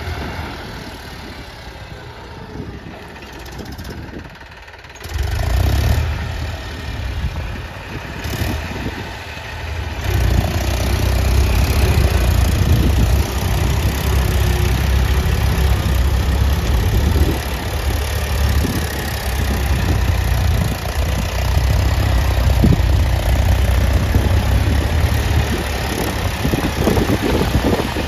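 Eicher 480 4WD tractor's diesel engine running under load while driving a rotavator through wet paddy mud. The low rumble is fainter at first, rises sharply about five seconds in, and runs louder and steadily from about ten seconds on.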